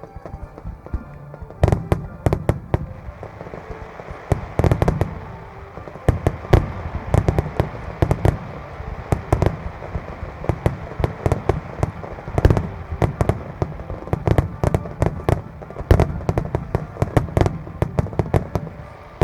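Aerial firework shells bursting in a dense barrage: many sharp bangs close together, beginning a little under two seconds in.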